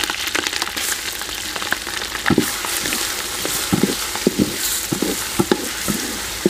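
Ginger-garlic paste and browned onions sizzling in hot oil in a steel pot, with many small crackles. A wooden spatula stirs them and knocks against the pot a few times.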